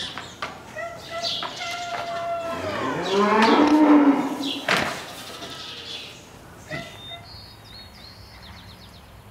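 Farm livestock calling: one long drawn-out call of about four seconds that drops lower and is loudest around three to four seconds in, followed by a sharp knock.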